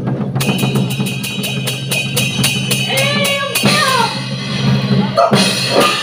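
Taiwanese opera stage music: a fast, even run of drum strokes over a sustained low accompaniment, breaking off about three and a half seconds in.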